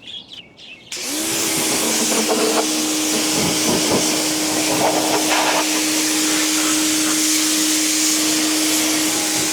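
BuyGlobal W6 electric pressure washer starting up about a second in, its motor rising quickly to a steady hum under the loud hiss of the water jet as it sprays down a rabbit hutch.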